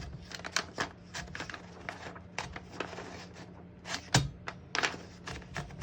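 Irregular clicks and clacks from a 1956 Smith-Corona Clipper portable typewriter being handled while loading paper: the paper-release lever and platen being worked, with a louder knock about four seconds in.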